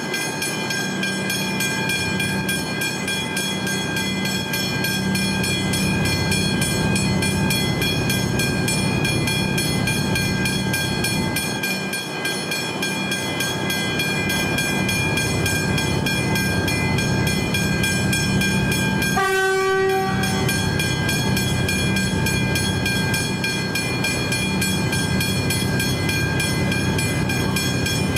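Level crossing warning bells ringing steadily and rapidly while the booms are down. About two-thirds of the way through, a train horn gives one short blast.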